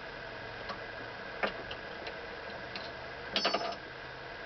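Metal parts of a Singer 127 sewing machine head being handled and worked loose: a few separate sharp clicks, then a quick rattle of several ringing metallic clicks about three and a half seconds in.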